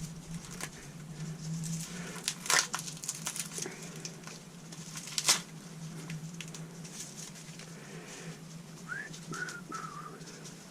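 Scattered clicks and knocks of small strimmer parts being handled on a workbench, the two sharpest about two and a half and five seconds in, over a steady low hum. A few short chirps near the end.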